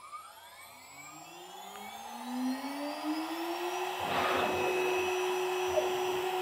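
CNC router spindle spinning up after the job is started: a rising whine that climbs for about four seconds, then levels off to a steady tone at running speed. A short burst of noise comes as it reaches speed.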